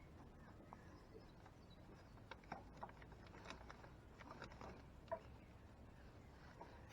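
Near silence with a low hum and a scattered handful of faint clicks and taps from parts being handled and fitted on the tractor.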